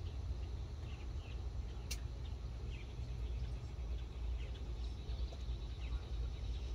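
Steady low rumble of outdoor background with faint, short bird chirps scattered through it, and one sharp click about two seconds in.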